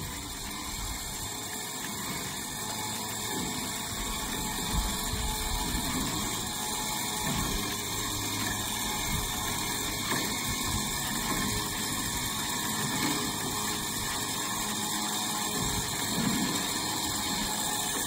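An 8,500-pound electric winch motor running steadily under load, reeling in its cable as it drags a truck up the deck of a tilt trailer.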